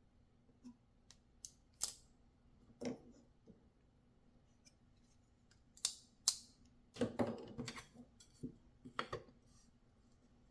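Titanium-handled folding flipper knife being handled and worked open and shut: a string of sharp metallic clicks and snaps, with a loud pair about six seconds in and a quick cluster of clicks about seven seconds in.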